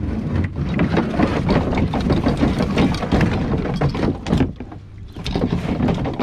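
Close, dense rustling, scraping and knocking of hands and gear handling a fish in a kayak, easing briefly about five seconds in.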